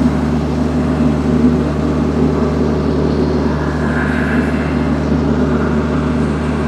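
A TYM tractor's diesel engine runs steadily under load, driving its forestry mulcher, with a dense churning noise over a constant low engine tone.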